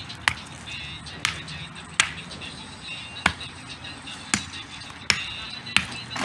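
Rocks clacking against one another as they are laid by hand into a shallow dirt trench: about seven sharp knocks at irregular intervals.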